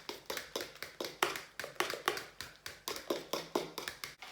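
A fork beating wet banana cake batter in a bowl: a quick, steady rhythm of taps, several a second.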